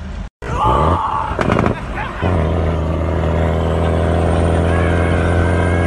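A truck engine running with a loud, steady drone, heard from inside the cab. It sets in about two seconds in, after a few short knocks.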